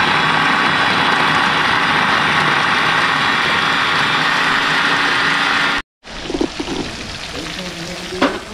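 Small electric food chopper running steadily for about six seconds as it blends garlic, hot peppers and culantro into a green seasoning, then stopping suddenly. After that, shrimp deep-frying in a pan of oil, sizzling more quietly.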